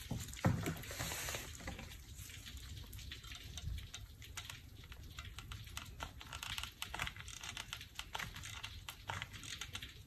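Faint, irregular small clicks and taps from handling a hot glue gun as it is worked around a wooden embroidery hoop on a silicone mat, with one louder knock about half a second in.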